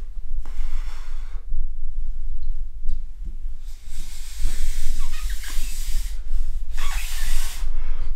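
Breathy hissing puffs as a man draws on and blows through a hand-rolled cigarette of tea leaves, three puffs of about a second each, over a steady low hum.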